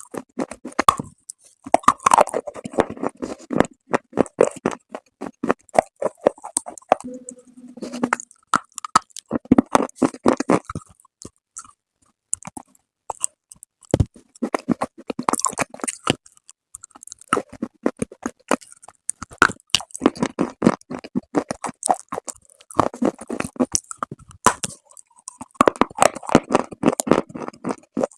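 Close-miked biting and chewing of brittle dry clay: many sharp crunches in runs of a few seconds, with short pauses between, and a longer lull about midway.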